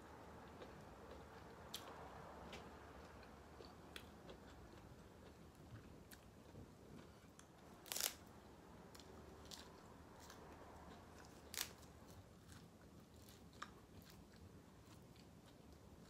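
Faint chewing and eating noises: soft scattered clicks and crunches, with two louder clicks about halfway and about two-thirds of the way through.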